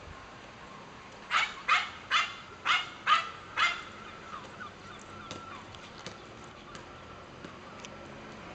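Small dog barking six times in quick succession with sharp, high-pitched barks, followed by a few faint ticks.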